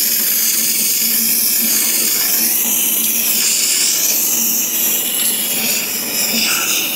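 Aerosol spray-paint can spraying in a continuous loud hiss, its tone wavering as the can moves.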